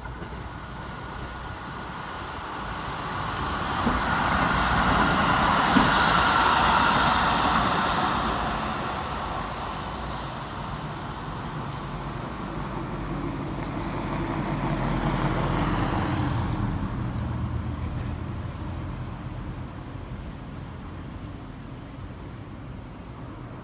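Keikyu 1000 series four-car electric commuter train running past on the tracks. Its running noise builds to a peak about five to seven seconds in, with one sharp click at the loudest point, then fades. A second, lower swell comes about fifteen seconds in.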